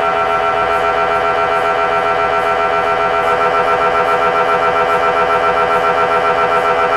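MRI scanner running a scan sequence: a loud, steady pitched drone from its gradient coils with a fast, even pulsing that becomes stronger about three seconds in, at roughly four pulses a second.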